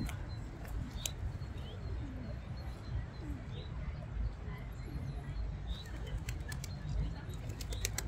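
Small birds chirping sporadically in short high notes over a steady low rumble of outdoor background noise, with a few sharp ticks about a second in and near the end.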